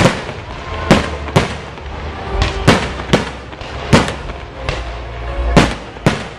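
Aerial fireworks shells bursting in quick, irregular succession, with about ten sharp bangs and a low rumble between them.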